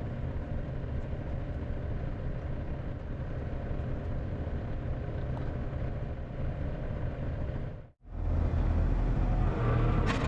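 A motor vehicle running, with steady engine and road rumble. About eight seconds in, the sound cuts out abruptly and comes back louder and deeper.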